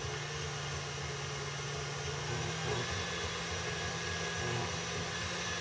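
Tilt-head stand mixer's motor running steadily at speed, a constant hum, as it beats egg yolks while oil is drizzled in slowly to form an emulsion.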